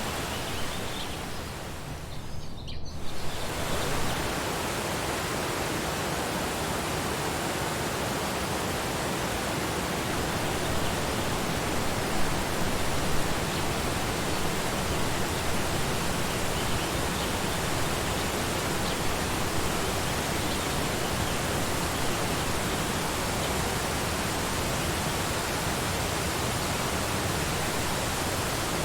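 Waterfall in a forest: a steady, even rush of falling water. About two to three seconds in, the hiss briefly thins out, then returns.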